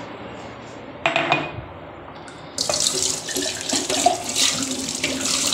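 Tap water running hard into a stainless steel kitchen sink and splashing over a steel bowl, starting suddenly about halfway through. About a second in there is a short clatter.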